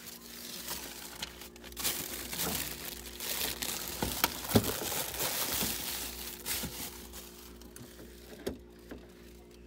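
Plastic crinkling and rustling while reaching into a refrigerator, with a few sharp knocks of containers, the loudest about four and a half seconds in, over a faint low steady hum.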